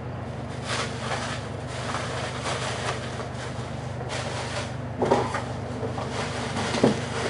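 Handling noise: things being moved and set down on a desk, a few short knocks, the clearest about five seconds in and again near the end, over a steady mechanical hum.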